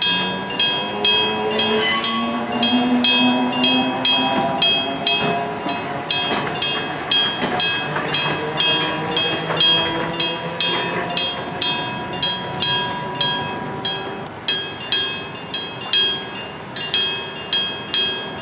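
Level-crossing electric bell (denshō type) ringing, a hammer striking the bell several times a second in a steady, even rhythm. A train passes the crossing through the middle of it, with a gliding, rising hum under the bell.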